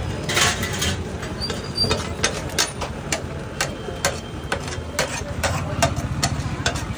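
Steel spatula and masher clacking and scraping against a large flat iron tawa as a thick vegetable mash is stirred and pressed, at an irregular couple of strokes each second. A steady low hum runs underneath.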